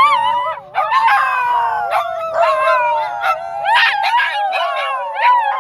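Several dogs howling together, long overlapping howls at different pitches sliding slowly up and down, with short yips and barks mixed in.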